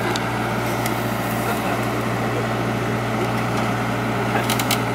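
Diesel engine of a Kobelco hydraulic excavator running steadily under load as it unloads from a flatbed trailer, with a few sharp clicks near the end.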